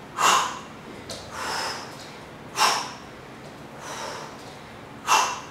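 A woman's sharp, forceful exhalations as she throws teep (push) kicks, three of them about two and a half seconds apart, with softer breaths in between.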